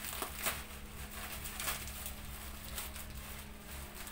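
Plastic packaging rustling and crinkling in short bursts as a parcel is unwrapped by hand, over a steady low hum.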